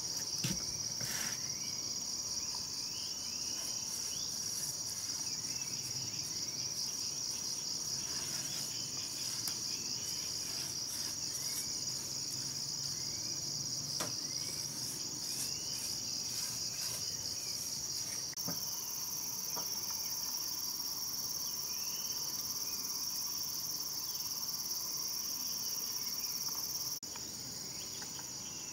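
Steady chorus of insects, a continuous high-pitched pulsing trill, with small chirps scattered over it. It dips slightly in level near the end.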